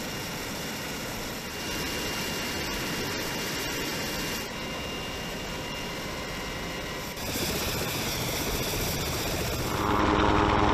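Helicopter running close by: a steady turbine whine over a rushing noise, stepping in level at several edits and growing louder near the end.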